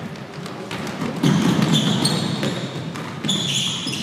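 Basketball bouncing on a hardwood gym floor during a full-court run, with sneakers squeaking sharply about two seconds in and again past three seconds. A louder stretch of court noise comes about a second in.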